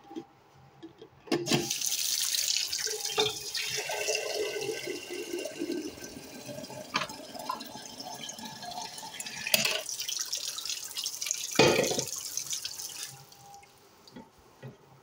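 Kitchen tap running into a glass coffee carafe, filling it. The water comes on about one and a half seconds in and stops shortly before the end, with a few knocks along the way.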